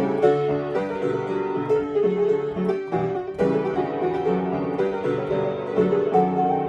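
Piano playing a melody over a lower accompaniment of bass notes, with a brief pause about three seconds in.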